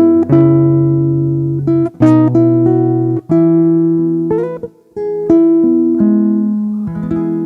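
Background music: plucked guitar chords with sustained notes changing about once a second.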